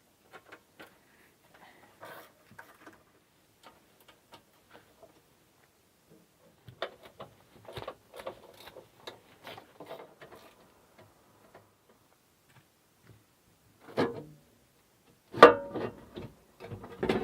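Rummaging through machine parts: scattered light clicks and taps, a stretch of denser rustling and knocking in the middle, then two louder knocks near the end, the second the loudest.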